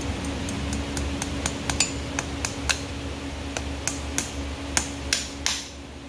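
Farrier's driving hammer tapping on a horseshoe and its nails held against a horse's hoof: a run of light, sharp metallic taps, about three a second, with a short pause near the middle. A steady fan hum runs underneath.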